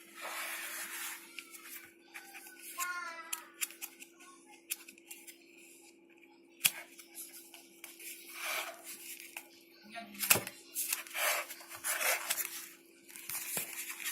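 Hands handling something at close range: irregular scratchy rustles and swishes with sharp clicks and taps, over a steady low hum.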